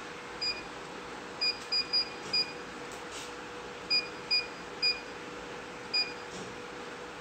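Control-panel beeps from an Atlantis tea and coffee vending machine: short, identical high beeps, about nine in irregular clusters, one for each button press as the water quantity setting is stepped up in program mode.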